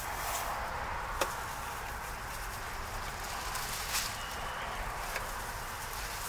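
Steady background noise with a few sharp light clicks or taps, the loudest about a second in and two fainter ones around four and five seconds in.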